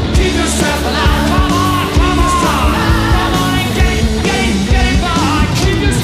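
A live rock band plays loudly: electric guitar and drums, with vocals.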